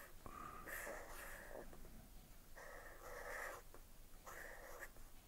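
Felt-tip marker drawing on paper: three faint scratchy strokes of about a second each.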